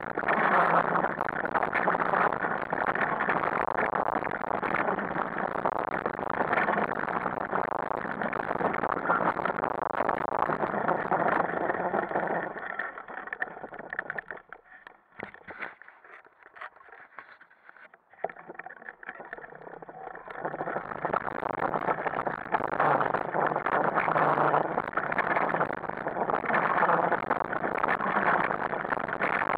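Steady rolling noise of a dog-drawn rig's tyres on a sandy dirt track. About thirteen seconds in it falls away almost to quiet as the rig slows, then builds back up about twenty seconds in as the dogs pull it on again.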